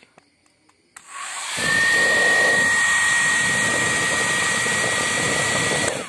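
Old Super Dryer 750 hair dryer switched on at its low setting with a click about a second in. The fan spins up within about half a second to a steady rushing whir with a high whine, then stops just before the end.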